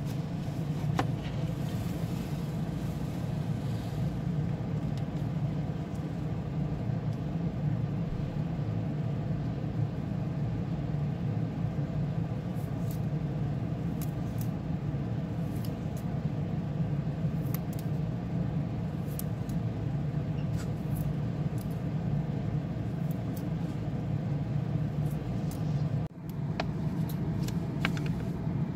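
Steady low hum of background rumble, with scattered light clicks from a wristwatch being handled in gloved hands; the sound dips briefly near the end.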